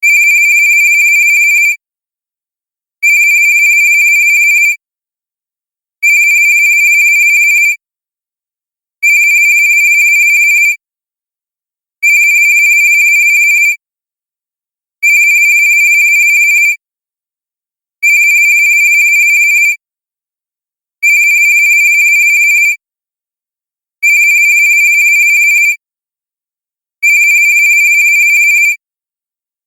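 Cartoon cell phone ringtone: a steady high electronic tone, each ring just under two seconds long, repeating every three seconds.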